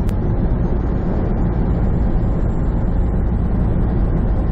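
Semi truck driving, heard from inside the cab: a steady drone of engine and road noise. A brief click comes right at the start.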